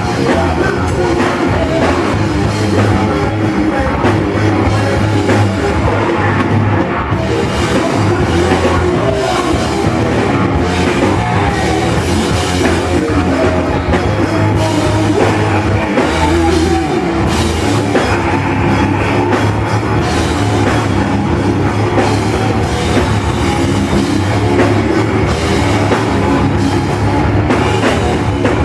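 Rock music with a drum kit, played loud and steady.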